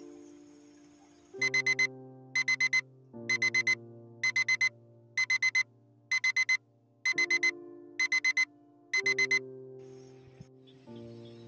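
Smartphone alarm beeping in quick groups of four, eight times about a second apart, then stopping about three-quarters of the way through as it is switched off. Soft sustained music chords play underneath.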